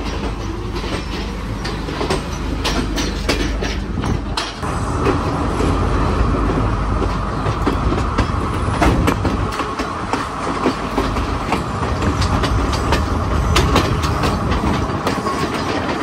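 Passenger train pulling out, heard from an open carriage doorway: a low running rumble with repeated sharp clicks of the wheels over rail joints and points. About five seconds in, a steady high whine joins and carries on.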